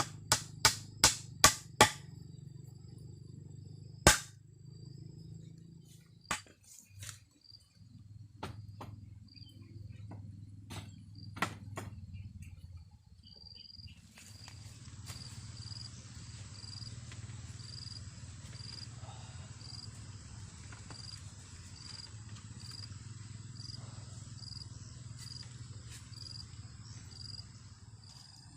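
A run of sharp knocks: about six quick ones, a louder single one about four seconds in, then scattered lighter ones until about twelve seconds in. From about fourteen seconds an insect calls in steady high-pitched pulses, about one and a half a second, over a low steady hum.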